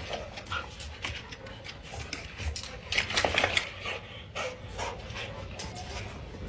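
Two dogs, a German Shepherd and a pale husky-type dog, play-fighting: short dog vocalizations over the scuffle, with a louder flurry about three seconds in.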